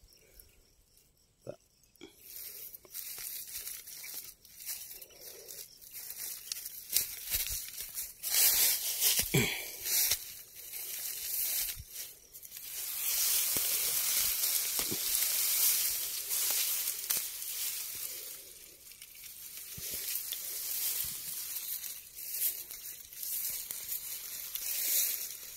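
Tall grass rustling and crackling as someone pushes through it on foot, blades brushing close to the microphone and dry matted grass crunching underfoot. Quiet for the first couple of seconds, then an uneven run of swishes and crackles, loudest through the middle.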